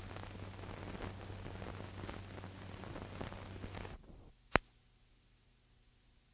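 Old film soundtrack noise: hiss and crackle over a steady low hum. It fades out about four seconds in, then a single sharp click is followed by near silence.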